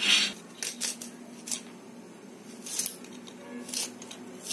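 Small red onions being sliced against a floor-mounted kathipeeta blade: a crisp crunch with each cut, about six cuts at uneven spacing, some close together.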